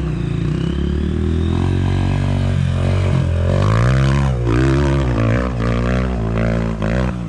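Trail motorcycle engine under hard throttle, its pitch climbing as the bike accelerates toward a steep dirt bank, then rising and falling repeatedly as the rider works the throttle up the slope and the engine labours before dropping away near the end.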